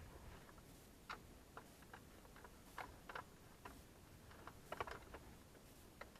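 Faint, irregular small clicks and ticks of a screwdriver and screws working on the plastic dash panels, as the HVAC control unit is unscrewed.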